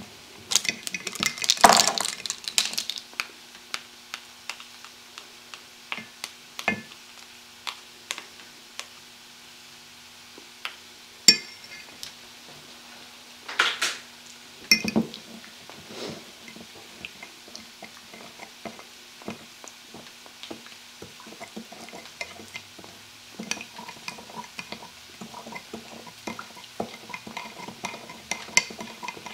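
Spoons clinking and scraping against a small glass bowl while a soy sauce, honey and brown sugar sauce is measured and stirred, with scattered knocks of utensils and dishes being handled. There is a loud clatter about two seconds in, and quick, rapid clinks of stirring near the end.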